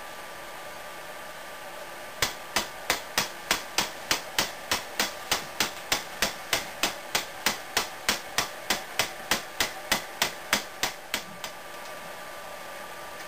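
Wing-flapping kinetic sculpture's mechanism ticking as it runs: sharp, evenly spaced metallic clicks about three a second, starting about two seconds in and stopping a couple of seconds before the end, the last few fainter.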